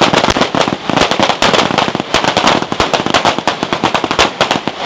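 Rapid, overlapping pistol fire from a long line of shooters firing at the same time, many shots a second, continuous and without a pause.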